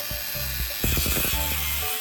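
Background music with a steady bass line; just under a second in, a power tool starts with a high-pitched grinding hiss and runs for about a second.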